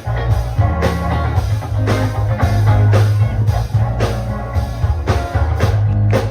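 Live gospel band playing an instrumental groove: drum kit keeping a steady beat, a strong bass line and electric guitar.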